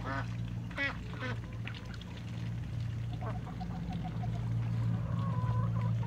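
Domestic ducks calling: a few quacks in the first second and a half, a quick run of short calls about halfway, and a longer held call near the end. A steady low hum runs underneath.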